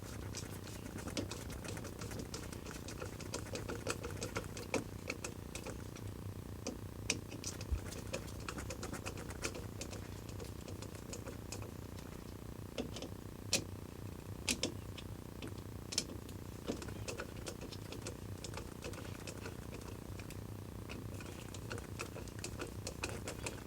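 Irregular small clicks and taps of screws being tightened into a bike lock's mounting bracket on the bicycle frame, with a few sharper clicks, over a steady low hum.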